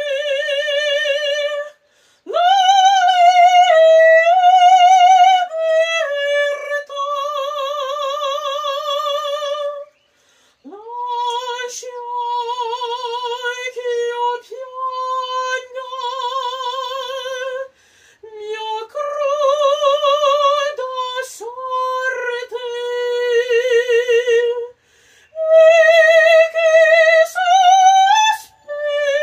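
A woman singing opera unaccompanied, in a high soprano voice with wide vibrato. She holds long notes in several phrases, with short pauses for breath between them.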